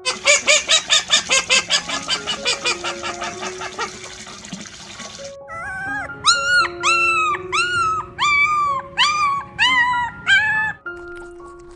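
An animal calling: a fast run of short pulsed calls for about five seconds, then, after a brief pause, about eight high pitched yelping calls in a row, over soft background music.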